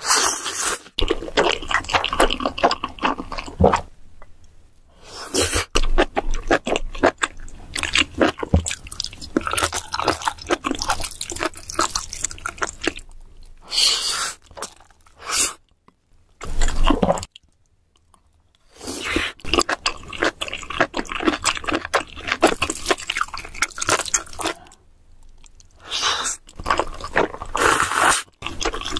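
Close-miked eating of saucy black noodles: wet chewing and sucking in mouthfuls, in bursts with short quiet pauses between them.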